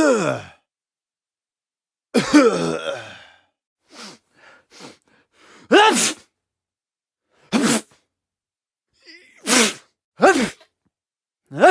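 A person sneezing and coughing over and over: a run of short, sharp bursts a second or two apart, with a longer, drawn-out one with falling pitch about two seconds in.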